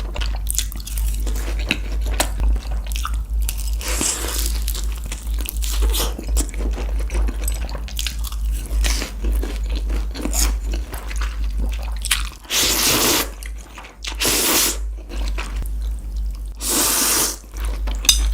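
A person biting and chewing crunchy food close to the microphone, with a stream of crackling crunches. There are three louder bursts of crunching in the second half, over a steady low hum.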